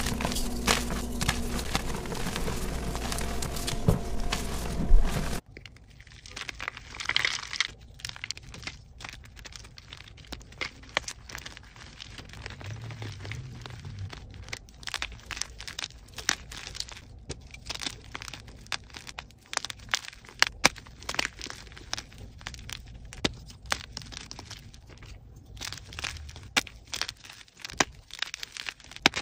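Hands crushing and crumbling blocks of soft white gym chalk: dry crunching with many short, sharp cracks as chunks break apart. The first five seconds are louder, over a low hum, then the sound drops suddenly to a quieter crumble with scattered sharp snaps.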